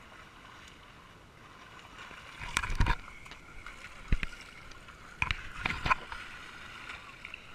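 Shallow water sloshing and splashing at the shoreline under a steady hiss, broken by several sharp knocks and thumps as the action camera is picked up and handled.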